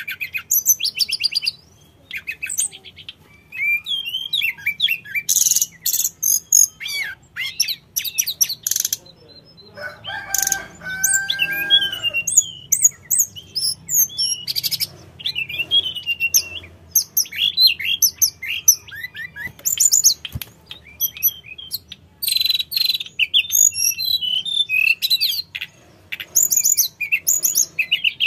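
Hill blue flycatcher singing: a varied song of high whistles, chirps and fast trills in quick bursts with short pauses, and a lower, slower whistled phrase near the middle.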